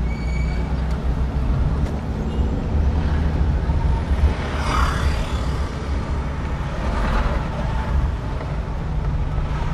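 Steady engine and tyre rumble inside a moving car's cabin, with the noise of passing traffic swelling twice, about five and seven seconds in.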